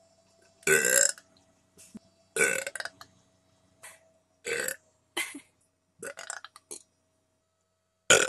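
A young woman burping repeatedly: about half a dozen short burps a second or two apart, the loudest about a second in and another loud one just before the end.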